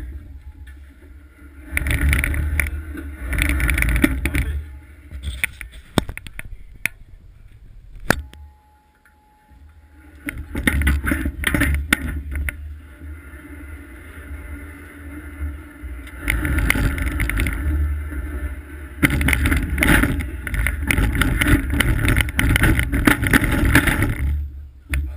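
Runners of a 1939 bobsleigh scraping over the ice as the sled is moved slowly, in several long stretches with a quiet pause about a third of the way in.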